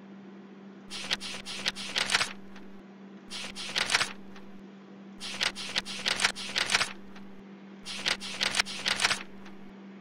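Computer mouse clicking in four quick runs of sharp clicks as a document is scrolled up, over a steady electrical hum.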